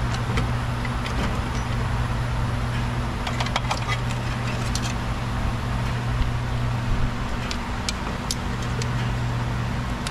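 Light clicks, taps and rattles of a hose clamp and a plastic intake duct being handled and fitted onto a throttle body, over a steady low hum.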